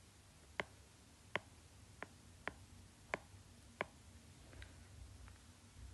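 Stylus tip tapping on a tablet's glass screen while short lines are drawn: a series of faint, sharp clicks at irregular intervals, roughly one every half second to a second.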